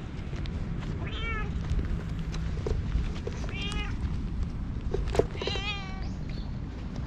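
Black stray cat meowing three times, short calls that rise and fall in pitch about two and a half seconds apart, the last one longer.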